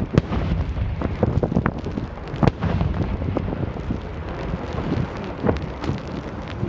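Fireworks going off: a dense, uneven run of sharp bangs and crackles over a continuous low rumble, with wind on the microphone.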